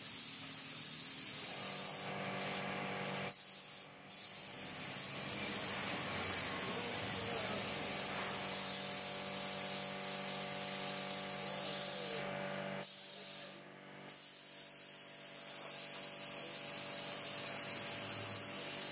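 Compressed-air paint spray gun with a cup hissing steadily as it sprays paint onto metal lamp parts. The hiss stops briefly about four seconds in and again around thirteen seconds in, when the trigger is let go.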